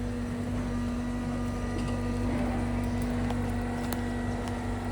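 John Deere 325G compact track loader's diesel engine running at a steady speed with an even hum, a few faint clicks and knocks on top.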